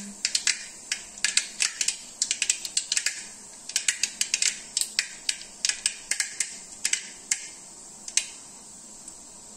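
Mustard seeds popping in hot oil: a rapid, irregular crackle of sharp pops that thins out to a few scattered ones near the end, a sign the oil is hot enough for tempering.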